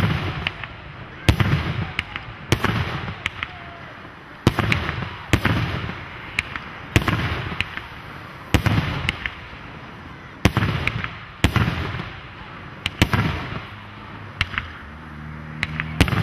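Fireworks display: a series of loud booms from aerial shells, about ten in all, roughly one every second or two, each dying away in a rumbling tail.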